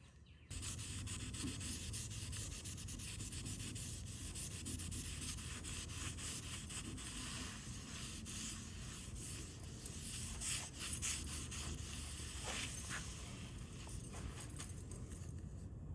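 Sanding a dark walnut wood mantel: a steady rubbing, sanding sound that starts about half a second in and keeps going, with a low hum under it and a few brief sharper scrapes near the end.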